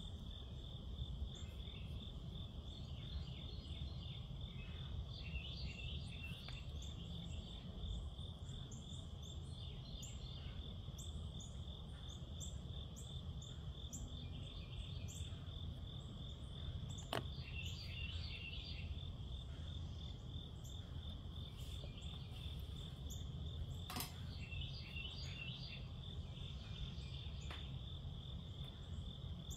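Night insects trill steadily in a fast, even pulse, with many shorter chirps over a low, steady background rumble. Two sharp clicks stand out, one a little past the middle and one later.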